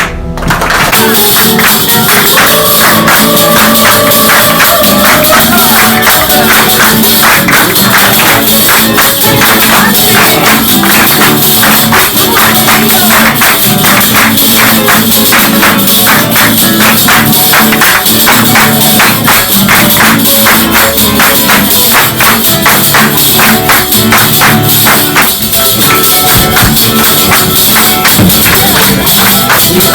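Loud music with fast, steady, shaken percussion and held melodic notes.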